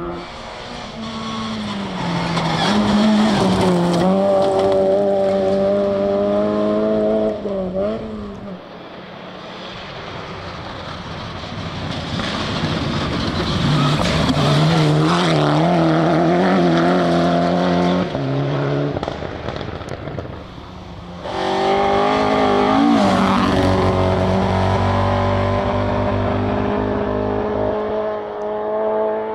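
Rally cars at full competition pace, engines revving hard, with the note climbing and dropping through gear changes and lifts as they pass. Three passes follow one another, each breaking off abruptly.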